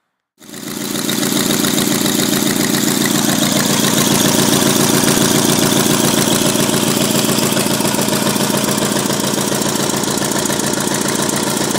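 18 hp Briggs & Stratton go-kart engine running steadily, turning the belt drive and jackshaft. It cuts in abruptly about half a second in.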